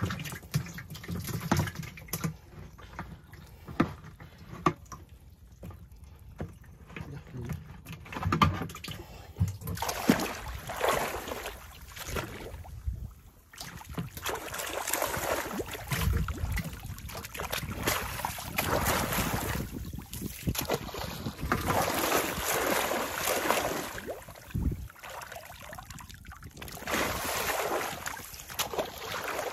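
Muddy water sloshing and splashing in irregular bursts as a person wades and sweeps a long-handled spiked fishing rake through it.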